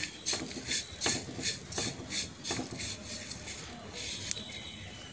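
A hand stirring sesame seeds, coconut slices and dried fenugreek leaves in a dry pan with no oil, a rhythmic rasping swish of about four strokes a second that dies down for the last couple of seconds.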